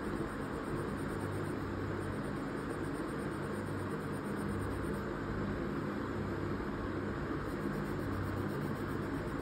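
Steady background hiss with a faint low hum underneath, even throughout.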